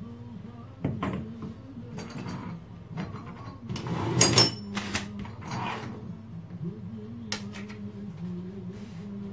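Brass clock-movement parts and hand tools being handled and set down on a wooden workbench: scattered knocks and metallic clinks, with the loudest clatter about four seconds in.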